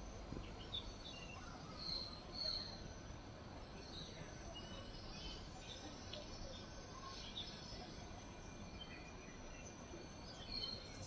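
Faint forest ambience: scattered short bird chirps over a steady background of insects.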